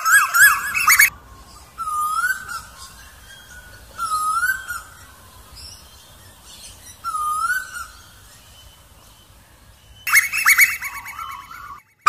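Asian koel calling. A fast run of rising notes ends about a second in, followed by three single rising 'ko-el' notes a couple of seconds apart. Another fast run of notes starts near the end.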